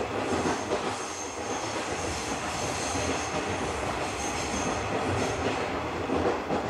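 Running sound of a JNR 50-series passenger coach: a steady rumble of wheels on rail, with a thin high squeal of the wheels from about one to five seconds in.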